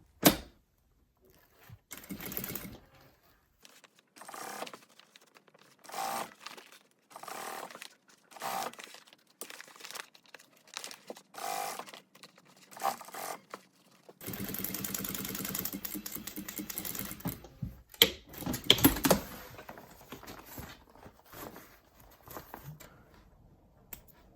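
Sewing machine stitching fabric for a bike frame bag in short runs, with one longer steady run about two-thirds of the way in. A few sharp knocks follow.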